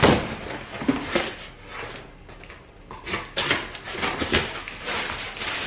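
Large cardboard shipping box being opened by hand: a sharp cardboard knock at the start, then irregular scraping, flapping and rustling as the flaps are pulled back and the packing inside is handled.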